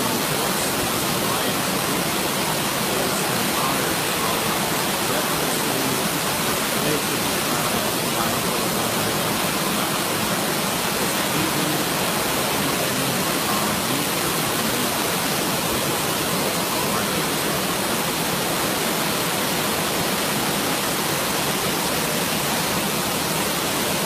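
Large waterfall cascading over boulders close by: a steady, loud rushing of falling water that does not change.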